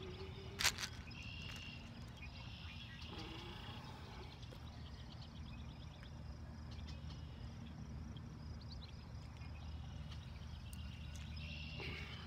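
Faint dawn pond ambience: insects trilling in quick pulsed bursts over a steady low hum, with one sharp click about half a second in.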